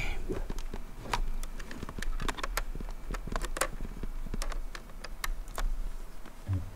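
Irregular clicking and tapping of a laptop keyboard being typed on, heard over a steady low electrical hum.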